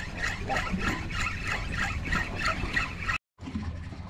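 Okuma 4000-size spinning reel being cranked steadily while jigging, its gears and line roller giving a rhythmic ticking whirr about four times a second. It cuts off abruptly a little after three seconds in.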